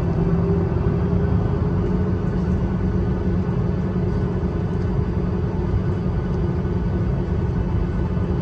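Boeing 737-800's CFM56 jet engines running at low taxi power, heard inside the cabin: a steady rumble with a low, even hum.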